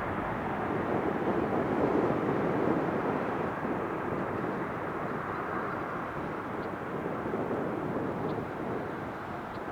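Airbus A330-200 jet's engines as a steady rushing roar during its departure climb, loudest about two seconds in and then slowly fading.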